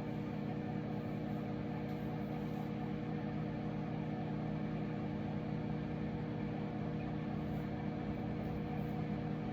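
Microwave oven running through a five-minute cooking cycle: a steady hum with several held tones that does not change.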